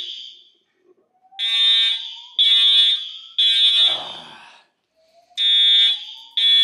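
Fire alarm sounding in the temporal-three evacuation pattern: loud, high-pitched beeps about a second apart in groups of three, with a pause of about a second between groups. A fainter rising tone runs under each group.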